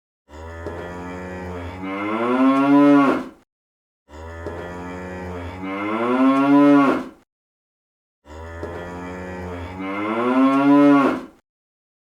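A moo-like call played three times in identical copies, each about three seconds long with silence between. Each starts low and rough, then rises in pitch to its loudest point just before it stops.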